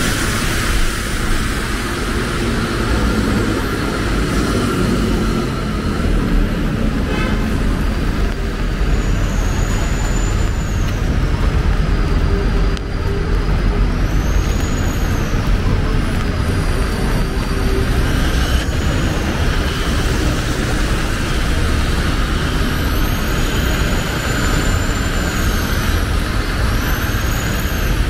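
Busy city street traffic, with buses and cars running and passing on rain-wet roads: a steady, loud rumble with the hiss of tyres.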